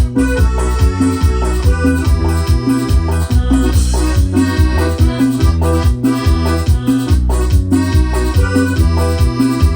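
Cumbia played on an electronic keyboard: a melody over a steady, repeating bass and beat.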